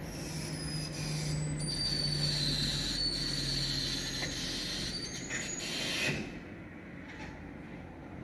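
Garwood rear-loader garbage truck's hydraulic packer blade sweeping through the hopper, squealing and grinding as it compacts the rubbish, with the truck's engine running underneath. The squealing stops with a final louder clunk about six seconds in.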